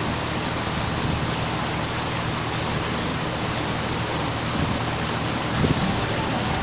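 A river passenger boat under way: its engine runs steadily beneath a constant rush of water and wind noise.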